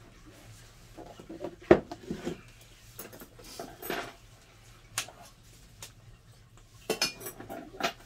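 Dishes and cutlery clinking and knocking in irregular clatters. The loudest knock comes a little under two seconds in, and a quick run of clinks comes near the end.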